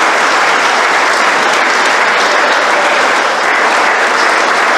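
Crowd applauding, a steady unbroken clapping.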